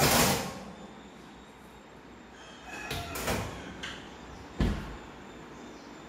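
A metal cake tin is set on a Bosch wall oven's wire rack with a sharp clatter, followed by metallic clinks as the rack is pushed in. The oven door then shuts with a single heavy thump a little before the end, leaving a steady low hum.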